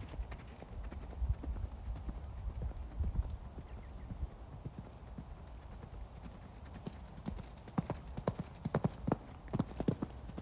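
Hoofbeats of a horse cantering on a sand arena. The strikes are faint at first and grow louder and sharper from about seven seconds in as the horse comes close.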